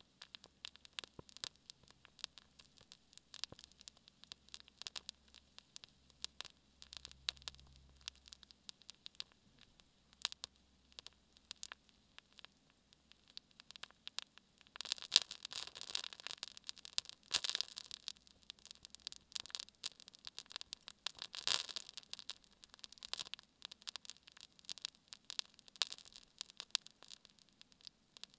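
Spruce-sap candle with a birch-bark wick burning: a quiet, irregular run of small crackles and pops from the hot resin. The crackling gets busier and louder for several seconds in the middle.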